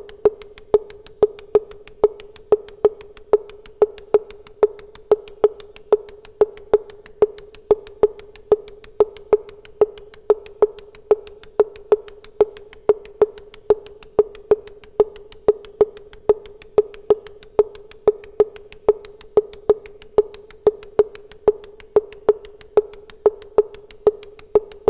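Modular synthesizer run by a step sequencer, playing one short, sharp blip at a single pitch over and over, about two or three a second. The blips follow the Euclidean 3-in-8 rhythm: three hits spread as evenly as possible over an eight-step loop.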